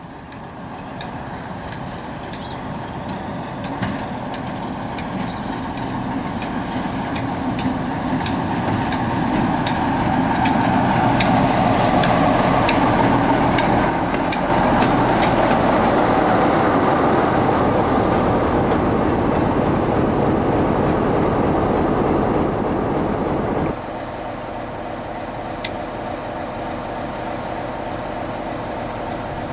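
Class 47 diesel-electric locomotive's Sulzer twelve-cylinder engine running as the locomotive draws close and passes, growing louder, with scattered sharp clicks. Near the end the sound cuts abruptly to the same locomotive running more quietly and steadily.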